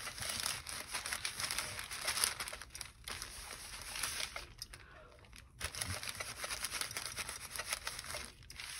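Dry clothes iron with the steam off sliding back and forth over parchment paper, a continuous rustling, crinkling scrape of paper, with a short pause about five seconds in.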